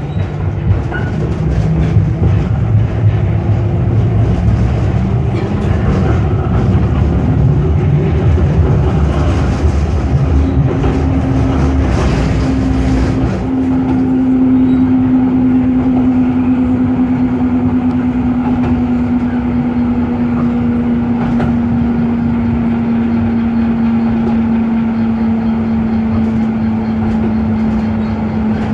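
Schindler Ag Be 4/6 articulated tram running on its rails, heard from on board, with a heavy rolling rumble through the first half. About halfway through a steady whine comes in and slowly drops in pitch as the rumble eases.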